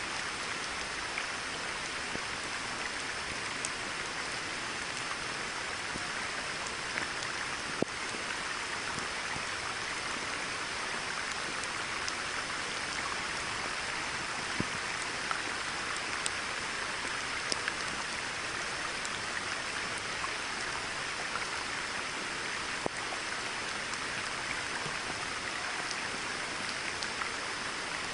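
Steady rain falling on a pond's surface, with the odd louder drip standing out from the even patter.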